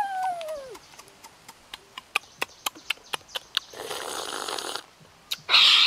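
A person eating cooked crab: wet mouth clicks and lip smacks, then two long slurps as juice is sucked out of the crab shell, the second louder and near the end. It opens with a short hum that rises and falls in pitch.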